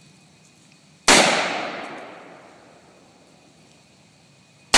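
A single sharp gunshot about a second in, echoing and fading away over a second or two. Right at the very end, the Tannerite charge in the clothes dryer detonates with a sudden loud blast.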